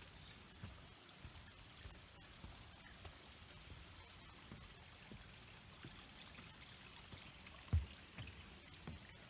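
A hiker's footsteps on a forest trail and a wooden footbridge, a soft thud about every half second, with one heavier step near the end. A faint steady rush of creek water sits behind them.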